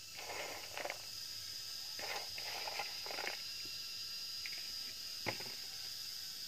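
Dry leaves rustling and crackling in a few short bursts as they are stuffed by hand into the firebox of a mud-brick wood stove, with one sharp tap a little after five seconds in. A steady high-pitched hum runs underneath.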